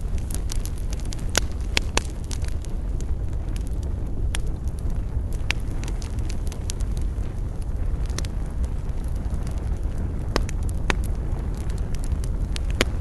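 Wood campfire crackling, with frequent sharp pops and snaps at irregular intervals, a few of them louder, over a steady low rumble.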